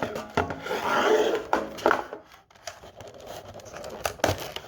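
Rubbing and rustling as the contents and packaging of an opened collector's tin are handled, loudest in the first two seconds, with a sharp click about four seconds in.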